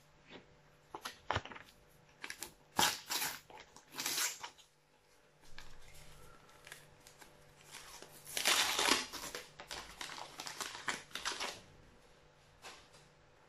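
Foil wrapper of a Panini sticker pack being torn open and crinkled by hand, in short bursts of crackling, loudest about eight to nine seconds in.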